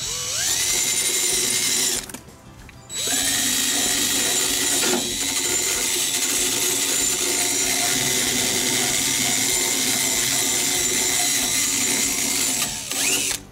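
Cordless drill spinning a wire wheel brush against a steel mulching mower blade held in a vise, scrubbing gunk off the blade. There is a short run that starts with a rising whine as the drill spins up, a pause about two seconds in, then a longer steady run that winds down near the end.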